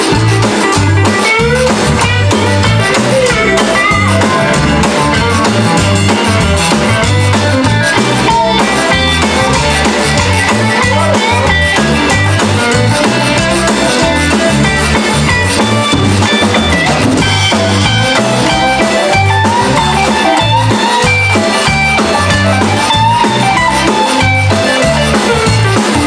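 Live Cajun band playing an instrumental break with piano accordion, electric bass, electric guitar and drum kit over a steady drum beat.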